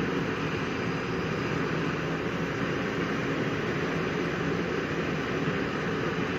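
JCB crawler excavator's diesel engine running steadily while its hydraulic boom and bucket are worked, a continuous even drone.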